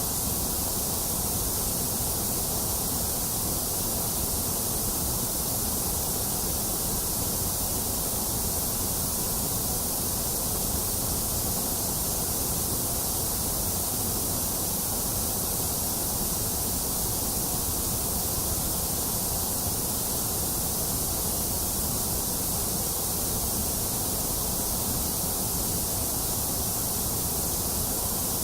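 Steady white noise: an even, unchanging hiss that does not vary.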